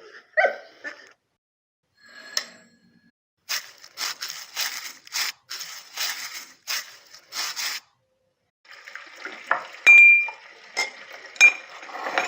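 A run of about nine short scratchy strokes, then running water with dishes clinking against each other, three sharp clinks in the last few seconds.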